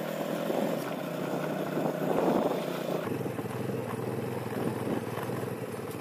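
Motorcycle engine running while riding along a dirt farm track. About halfway through, its note steps down to a lower, steadier pitch.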